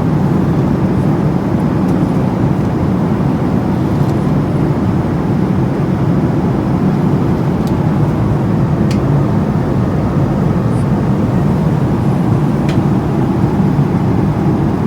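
Steady low rumble of an airliner cabin in flight, with a few faint clicks.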